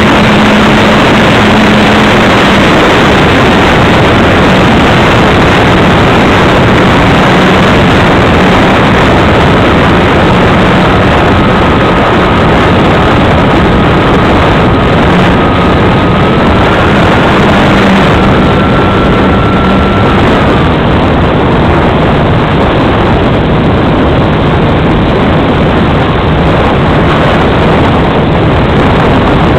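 Model aircraft's motor and propeller heard from a camera on board, buried in heavy wind rush on the microphone; loud and steady, with a low droning note and a thin high whine that steps up in pitch in the middle and then cuts out.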